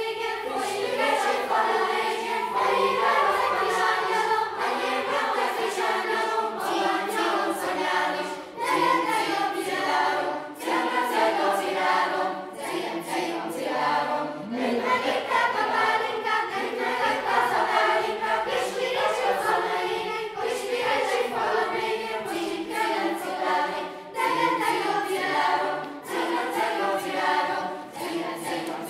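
Children's choir singing a cappella, phrase after phrase with short breaths between.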